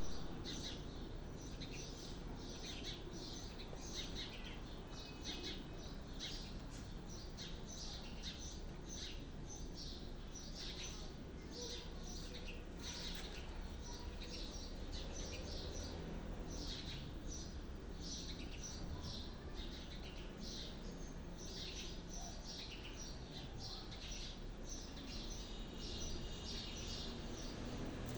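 Birds chirping, many short high calls repeating over and over, over a steady low background noise.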